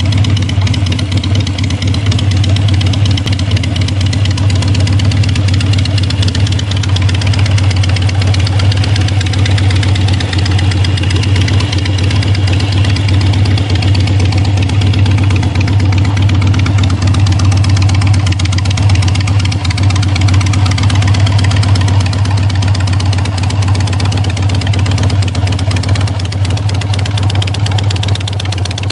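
A 2005 Harley-Davidson Sportster 883's air-cooled V-twin idling steadily through an aftermarket exhaust, with no revving.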